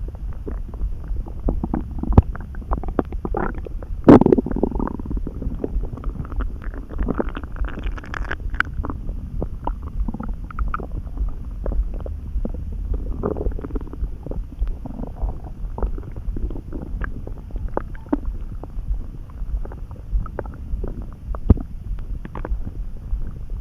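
Human stomach gurgling and rumbling: a constant low rumble under many short gurgles. The loudest gurgle comes about four seconds in, and a longer, higher-pitched gurgle follows around seven to eight seconds.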